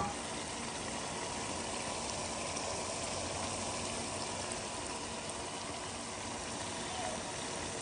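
Sausage, tomato and egg sauce sizzling and simmering steadily in a frying pan.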